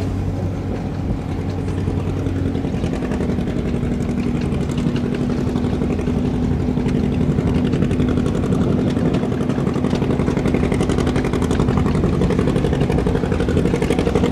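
Antique farm tractor engine working hard under load as it pulls the sled, a steady, rapid beat; its pitch drops slightly about three seconds in and it grows a little louder.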